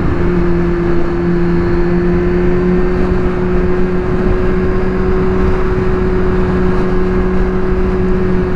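Kawasaki Z1000 R's inline-four engine running at a steady cruising speed, its pitch holding level, over a constant rush of wind and road noise picked up by a lavalier microphone on the rider.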